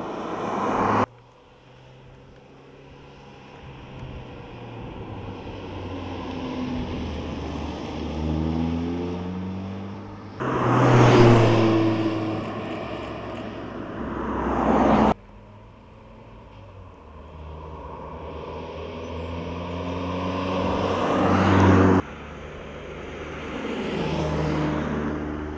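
Audi S1 Sportback's turbocharged 2.0-litre four-cylinder engine accelerating through the gears, its note climbing in pitch again and again. Several separate drive-by shots are joined by sudden cuts about a second in, about 10 and 15 seconds in, and about 22 seconds in. It is loudest at about 11 seconds.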